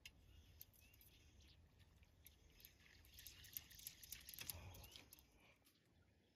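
Near silence, with faint scattered clicks that grow denser between about three and five seconds in, then fade.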